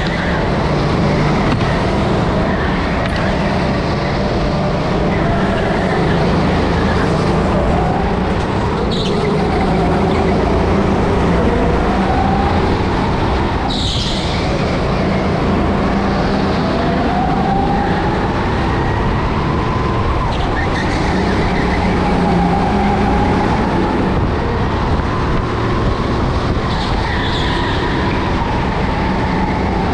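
Onboard sound of a rental kart lapping an indoor track: the kart's motor runs continuously, its pitch rising and falling with speed through the corners and straights. A few short sharp noises stand out, the clearest about halfway through.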